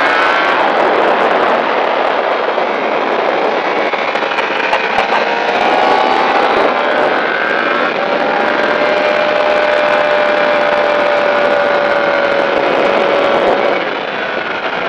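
Sport motorcycle's inline-four engine at high revs, accelerating hard on track, with heavy wind and road noise on the onboard microphone. The engine note rises at the start, holds a long steady high pitch through the middle, and drops near the end as the bike shifts up and eases.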